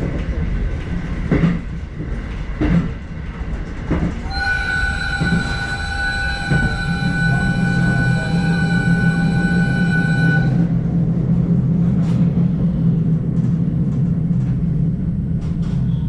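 JR Hokkaido electric commuter train running, with a few sharp clicks from the wheels over the rails. About four seconds in, a steady high-pitched tone sounds for about six seconds and cuts off suddenly, while a low hum builds up.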